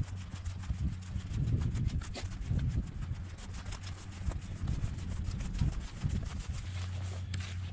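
Footsteps through dry grass, a run of rustling strokes over a low rumble of wind and handling on the microphone of a moving camera.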